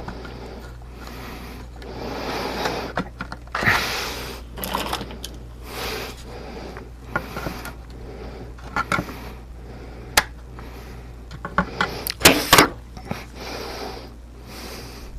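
Irregular rubbing and handling noises, with several sharp clicks and a cluster of knocks a little after the middle, over a steady low hum.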